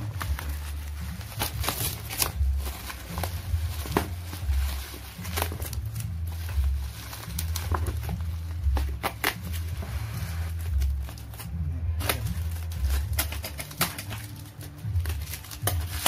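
Bubble wrap and plastic packaging tape being handled and pulled open: rustling and crinkling with many sharp crackles, over a low rumble.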